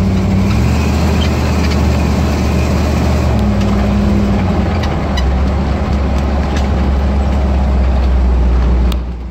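V8 engine of a 1989 Jeep Wrangler running, its low drone stepping in pitch a few times as engine speed changes, under a steady rushing noise. The sound drops away sharply just before the end.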